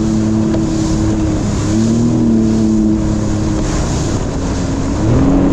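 Sea-Doo Explorer Pro personal watercraft running at cruising speed, its engine tone steady over rushing water spray and wind. The engine pitch wavers, dipping a little after about four seconds and climbing again near the end.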